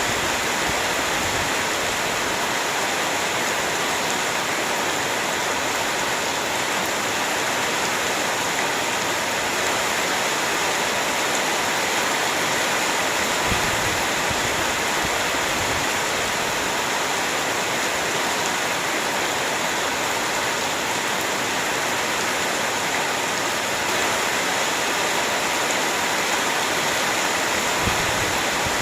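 Heavy rain falling steadily, a dense even hiss that holds at one level throughout.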